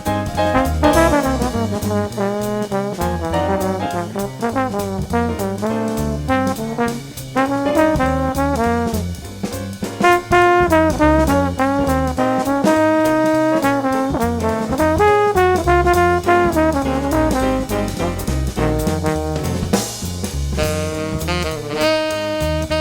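Background jazz music with brass horns playing a melody over a steady drum beat.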